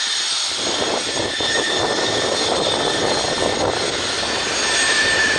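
Jet aircraft engine noise: a steady rush with a thin high whine that grows a little louder near the end.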